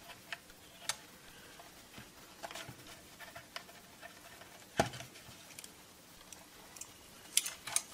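Light clicks and taps from hands handling a plastic multimeter case and pressing on its cartridge fuses, with one louder knock about five seconds in and a quick run of clicks near the end.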